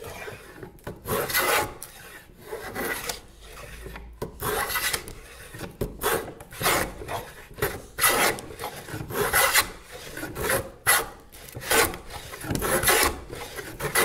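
Vintage combination plane set up as a plow plane, cutting a groove along the edge of a board in repeated short strokes, about one a second, each a brief scrape of the iron taking a shaving. The iron is a little short of proud on one side of the skate, by the user's own guess.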